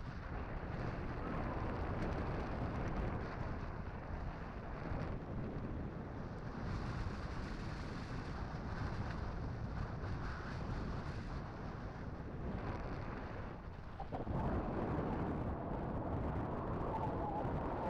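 Wind buffeting the microphone over a steady low rumble while a road bike is ridden; the noise gets a little louder about two-thirds of the way through.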